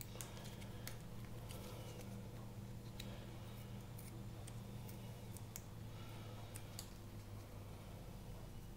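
Scissors snipping, a scattering of faint sharp clicks as the edges of a thermoformed plastic grinding tray are trimmed, over a steady low hum.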